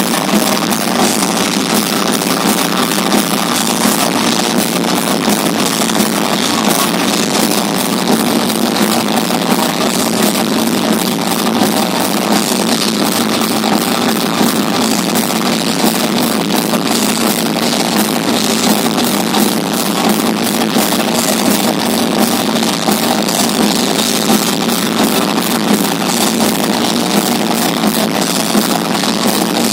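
Live metal band playing: distorted electric guitars and rapid drumming in a loud, dense, unbroken wall of sound, thin in the low end.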